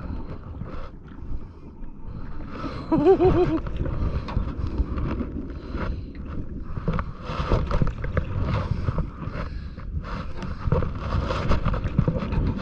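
Wind buffeting the microphone in gusts out on open water, with a short voice about three seconds in.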